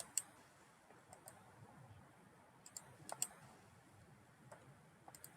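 Several sharp clicks of a computer mouse, some coming in quick pairs, over faint room tone.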